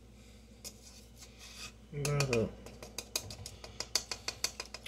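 A brief murmur from a man's voice about two seconds in, then a quick run of light clicks, several a second, from a spoon tapping against a container as baking powder is measured out for cookie dough.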